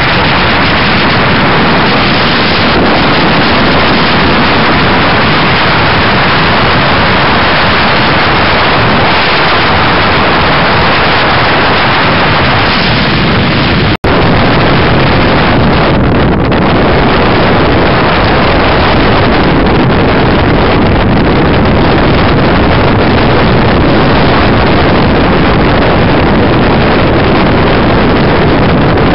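Loud, steady wind noise on a camera microphone mounted on a moving motorcycle at riding speed. The roar breaks off for a split second about halfway through.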